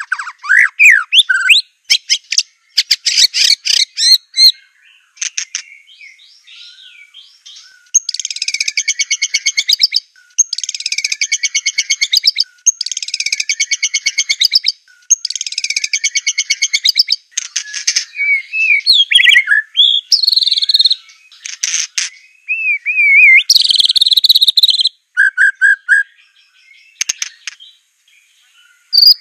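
White-rumped shama of the Aceh strain (murai batu Aceh) singing a long, varied song. Fast runs of rapidly repeated notes come four times in a row, broken by short pauses, then clear whistles, pitch glides and short phrases.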